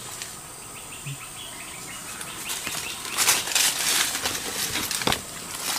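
Swamp-forest ambience: a steady high-pitched insect drone with a run of short chirps, then loud rustling for about a second from around three seconds in, and one sharp click near the end.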